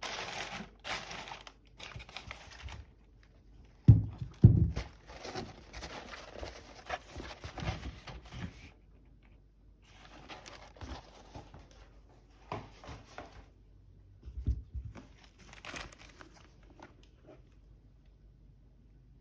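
Packaging being handled: paper and wrapping crinkling and rustling in irregular spells, with two loud low thumps about four seconds in and two softer ones later.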